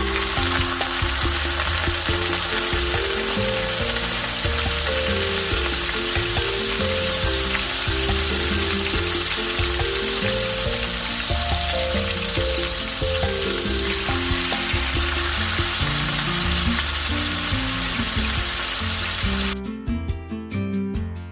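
Chicken pieces frying in hot oil: a steady, loud sizzle, with background music underneath. The sizzle cuts off suddenly near the end, leaving only the music.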